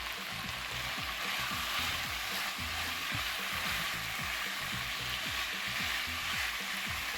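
Chicken pieces and grated carrot sizzling steadily in hot oil in a frying pan.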